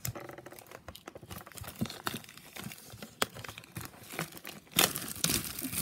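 Clear plastic shrink-wrap being torn and peeled off a Pokémon card tin, crinkling and crackling irregularly, with a louder burst of tearing crinkle near the end.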